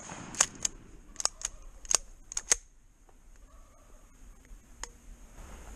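A quick run of sharp clicks and knocks, about eight in the first two and a half seconds, from a turkey hunter handling his shotgun and gear right after the shot, followed by faint rustling.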